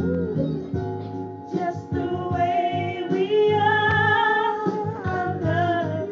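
A woman singing, holding long notes through the middle.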